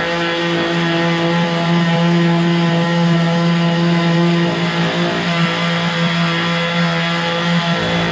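DeWalt 20-volt brushless battery palm sander running steadily at its highest speed setting, sanding rough wood: a constant motor hum with a whirring overtone.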